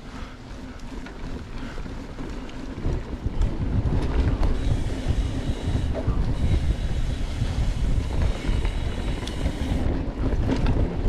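Wind rushing over the microphone of a handlebar-mounted camera on a mountain bike riding at speed, with tyre rumble over the trail. It gets louder about three seconds in as the bike picks up speed.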